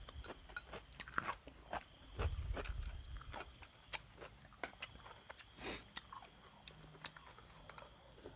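A person chewing and crunching food, with many small scattered clicks and crackles.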